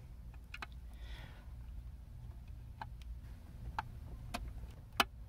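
A handful of faint, sharp clicks from a flat-blade screwdriver working the adjustment screw on a disc-type electric boat horn, over a low steady hum; the sharpest click comes near the end. The screw is being turned in to set the horn's contact point, since the horn only clunks instead of sounding.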